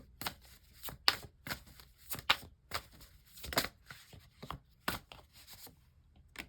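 Tarot cards being handled and shuffled: a string of short, irregular snaps and taps, a few each second.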